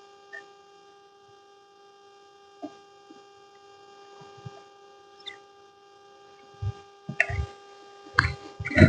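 A steady electrical hum made of several fixed tones, with a few scattered knocks and then a cluster of low thuds and knocks in the last two seconds, the loudest right at the end.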